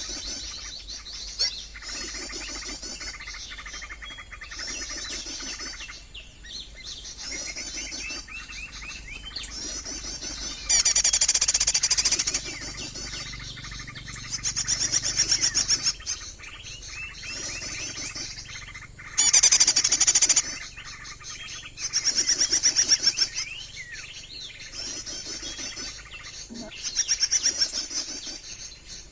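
Songbird calls played through a speaker to lure birds: repeated chirping phrases, with loud, rapid high trills breaking in several times.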